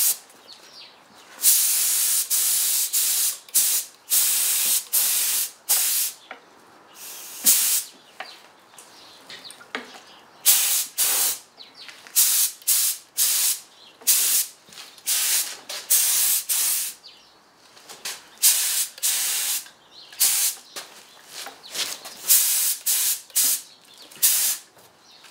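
Compressed-air paint spray gun hissing in many short bursts as the trigger is squeezed and released, laying on a first coat of paint.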